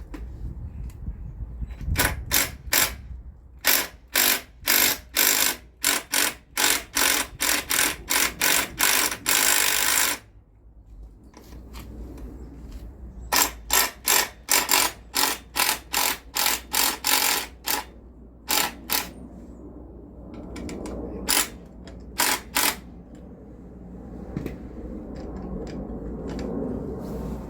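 A hand tool working bolts, making runs of short, sharp mechanical rasps about two a second, with pauses between the runs.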